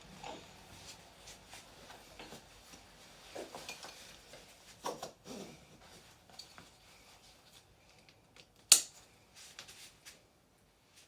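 Rustling and light knocks of a buckle baby carrier's straps and clothing being handled as a baby is swung onto the back, with one sharp click a little before the end.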